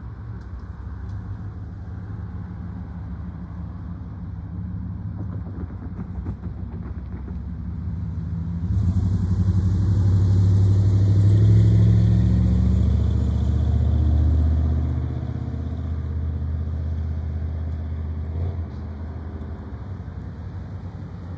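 Diesel locomotive engine of a Norfolk Southern SD70ACe, an EMD two-stroke diesel, rumbling steadily as the train approaches slowly. A louder rushing pass swells about halfway through and fades after a few seconds, most likely a road vehicle going by close to the microphone.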